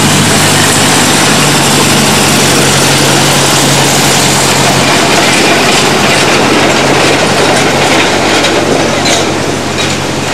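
Narrow-gauge (600 mm) passenger train rolling past, its wheels clicking over the rail joints. A low engine hum from the locomotive fades out in the first few seconds, and the whole sound falls away near the end as the last car goes by.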